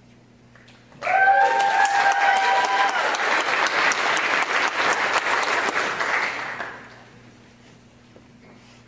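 Audience applauding for about six seconds, starting suddenly about a second in and dying away near the end. A held cheer rises over the clapping for its first couple of seconds.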